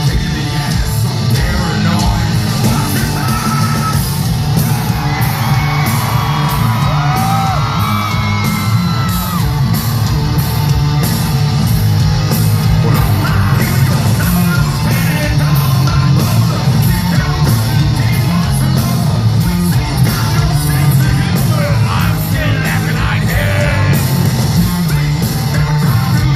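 Hard rock song with heavy electric guitars and a steady driving drum beat under loud, yelled and sung vocals.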